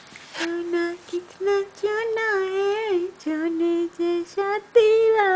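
A woman singing a tune alone, in short phrases of held and gliding notes.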